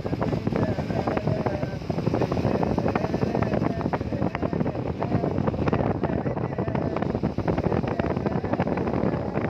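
Heavy rain falling steadily, a dense patter of many separate drop hits.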